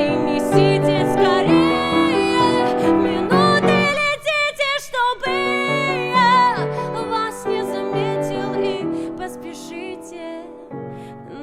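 Background music: a slow pop song with piano and a wavering lead melody, growing quieter toward the end.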